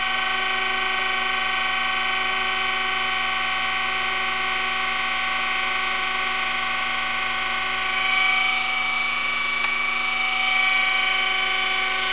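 Surface grinder's wheel spindle and the electric centers' motor running with a steady whine of several tones. About eight seconds in, the wheel starts cutting the hardened steel drill bushing, adding a hiss and a higher ringing tone that swell and fade twice, with a single sharp click in between.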